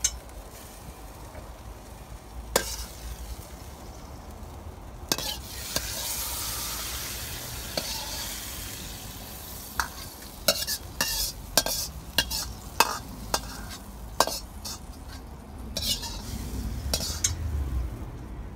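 Metal Chinese ladle scraping and clanking against a carbon steel wok as stir-fried food is scooped out, with hot food sizzling in the wok. The sizzle swells a few seconds in, and the sharpest clanks come in a quick run later on.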